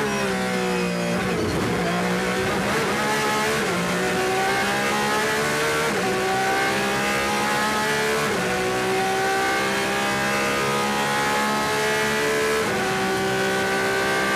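Porsche 911 RSR race car's naturally aspirated flat-six heard from the cockpit, pulling hard through the gears. The note climbs steadily, then drops sharply at each of several quick upshifts, about every two seconds. The last gear pulls longer.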